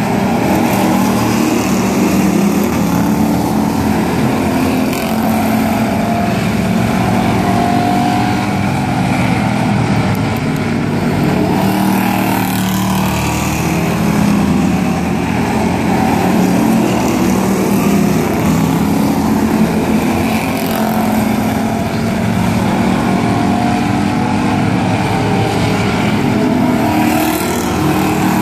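A pack of pure stock race cars' V8 engines running hard around a short oval track: a continuous loud drone whose pitch rises and falls as the cars pass and go around the turns.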